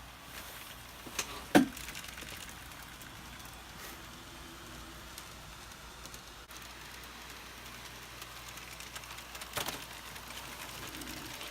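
N scale model trams running on plastic tram track: a faint steady running noise with light clicks of wheels over track joints and turnouts, and two sharper clicks, one about a second and a half in and one near the ten-second mark.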